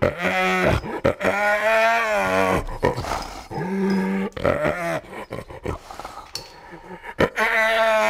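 Spotted hyena growling: a run of drawn-out, pitched growls, each lasting about half a second to a second and a half. After the third there is a quieter pause of about two seconds, and another growl starts near the end.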